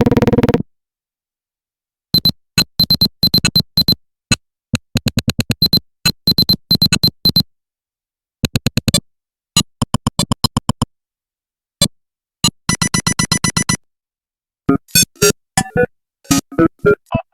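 Nothing Phone (1) ringtones played one after another as short, sparse electronic patterns. A dense burst from one tone ends under a second in. After a short silence come quick clusters of staccato blips and clicks topped with a bright high ping, and then further clusters of clipped synth notes with brief pauses between them as the tone changes.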